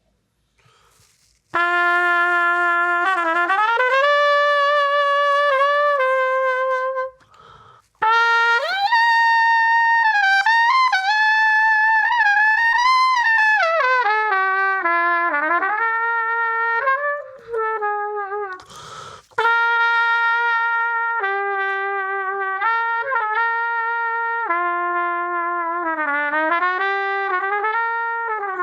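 Solo trumpet playing a slow melody in long held notes with bends between them, starting about a second and a half in and pausing briefly twice along the way.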